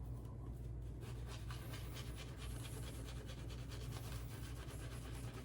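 Shaving brush with a Boti 26mm knot being worked quickly through shaving soap, building a lather, a faint rapid swishing over a steady low hum.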